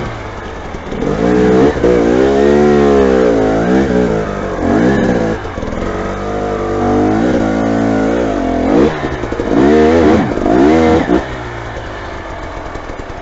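Motorcycle engine revved up and down several times, its pitch climbing and falling with each twist of the throttle, then dropping to a lower steady run about eleven seconds in.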